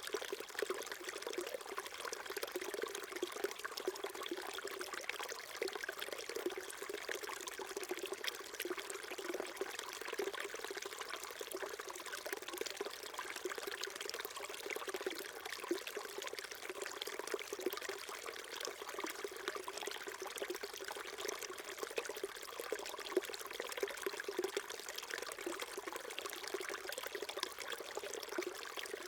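Small stream flowing and trickling over stones, a steady babbling with many small splashes.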